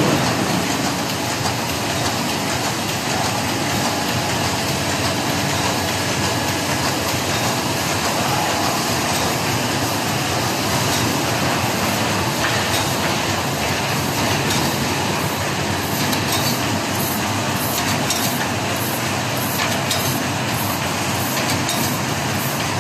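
FHS-1050 hot and cold laminating machine running: a steady, even mechanical noise, with a run of quick light clicks in the last several seconds.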